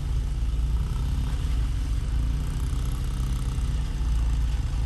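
A vehicle engine running steadily at low speed, a continuous low rumble with no revving.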